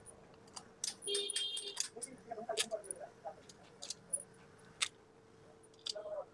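Hand tools and small metal parts clinking and clicking on a motorcycle being worked on, with a ringing metallic clink about a second in, over a faint steady hum.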